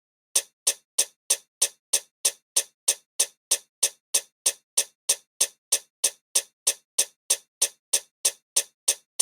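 Steady, evenly spaced ticking sound effect, about three sharp ticks a second, starting about half a second in.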